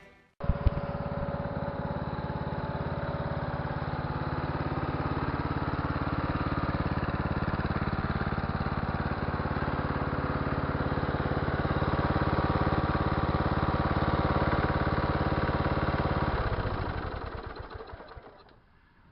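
Yard Pro LT 12.5 riding lawn mower's 12.5-horsepower engine running steadily. It comes in abruptly about half a second in and winds down near the end as it shuts off.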